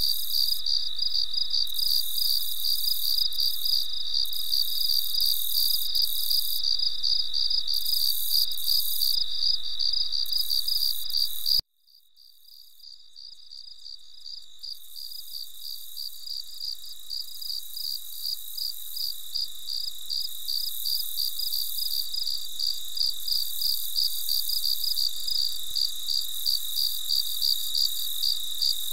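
Crickets chirping in a steady, rapidly pulsing high trill. About twelve seconds in the sound cuts off abruptly, then fades back in gradually to full level.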